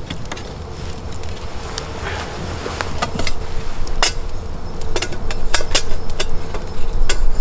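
Wood campfire crackling with scattered sharp pops, while a small metal kettle clinks as it is hung on a wooden stick tripod over the fire. A steady insect buzz sits under it.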